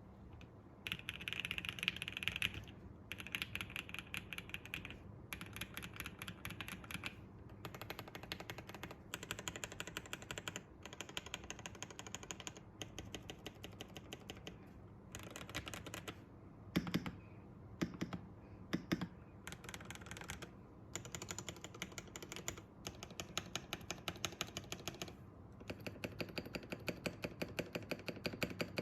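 Typing on a Gray Studios Think6.5 V2 custom mechanical keyboard with lubed and filmed Alpaca V2 linear switches, an FR4 plate, gasket mount, and foam and tape mods. Rapid key presses come in bursts of a second or two with short pauses, and a few heavier, deeper single presses stand out about halfway through.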